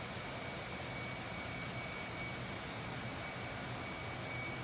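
Steady din of a ship's engine room at sea: four-stroke diesel generators at constant speed and the main six-cylinder two-stroke slow-speed diesel running, a low hum with a thin steady whine on top.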